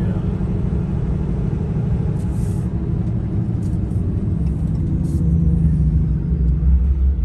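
Truck engine and road noise heard from inside the cab while driving, a steady low rumble. The engine note shifts and the rumble swells slightly about halfway through as the truck slows to turn into a parking lot.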